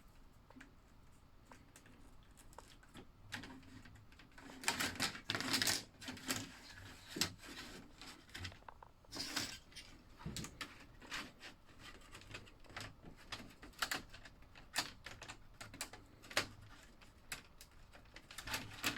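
Plastic Tyco slot car track pieces being handled, clicking and clattering as they are fitted together, with irregular sharp clicks and a couple of louder rattling stretches.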